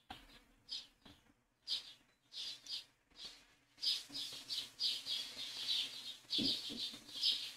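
A bird chirping in short, quickly repeated notes, busier in the second half. There is a soft low thump about six seconds in.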